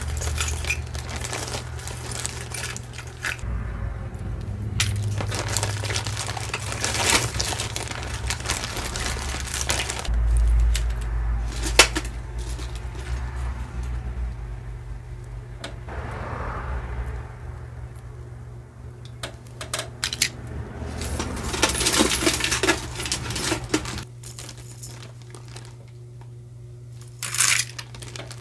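Small pieces of costume jewelry clicking and clinking as they are handled and dropped into a box, with some crinkling of packaging in between, over a steady low hum.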